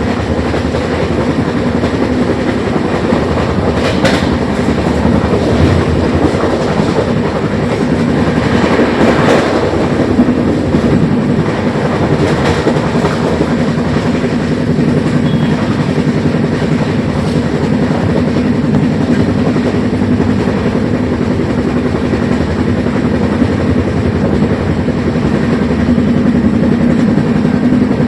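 A train running along the track: a steady, loud rumble with a low hum and a few sharper clatters from the wheels.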